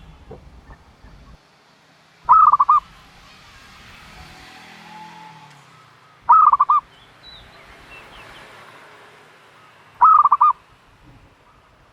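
Turtle dove calling: three loud bursts of quick repeated notes, each about half a second long and spaced about four seconds apart.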